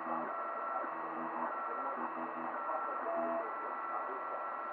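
3D printer printing: its stepper motors sing in short pitched tones, each lasting a fraction of a second and changing note with each move of the print head, over a steady fan hiss.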